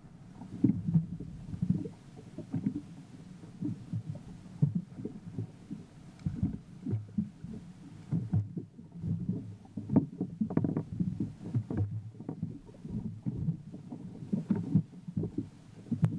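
Choppy water slapping and knocking against a small boat's hull in a run of irregular, muffled low thumps.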